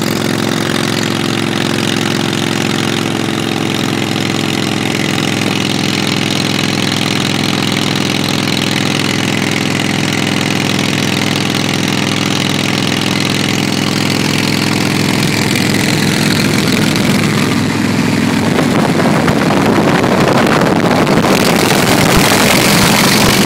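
Harley-Davidson Fat Boy's V-twin engine running at a steady cruise alongside the car. Wind and road noise grow louder over the last third.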